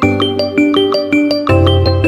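A mobile phone ringtone playing: a quick melody of short notes, several a second, over a low bass line.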